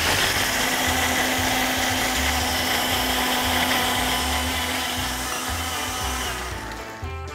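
Single-serve countertop blender running, blending a margarita: the motor starts abruptly, runs steadily for about five seconds, then winds down and fades out near the end.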